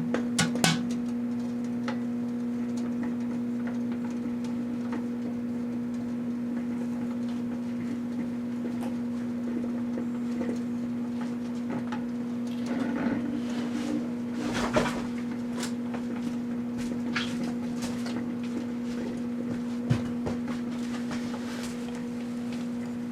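Proctor-Silex microwave oven running with a steady hum, with scattered crackles and a couple of short sputtering bursts from small fountain fireworks burning inside it.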